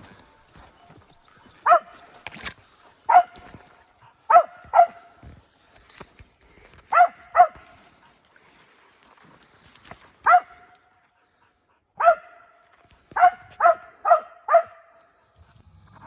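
A dog barking in short, sharp barks, about a dozen of them, often two in quick succession, with pauses of a second or more between.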